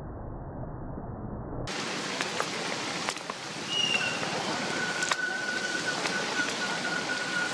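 Rain falling on wet pavement, a steady hiss, muffled at first and opening up about two seconds in. A few sharp drip-like ticks sound through it, and about halfway a thin, steady, high tone joins in and holds.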